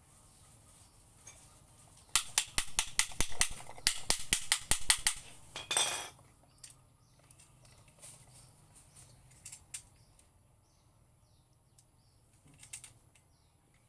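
Rapid run of sharp mechanical clicks, about six a second for roughly three seconds, then a short scrape, as parts of a Hitachi angle grinder are handled and fitted back together by hand. Faint bird chirps follow.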